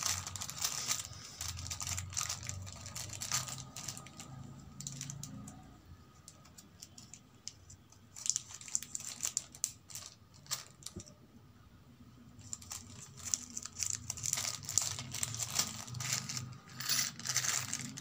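A thin plastic packet crinkling and being torn open by hand, in irregular bursts with short quieter pauses, the small brass wick stands inside rattling; near the end the brass pieces clink as they are tipped out into a palm.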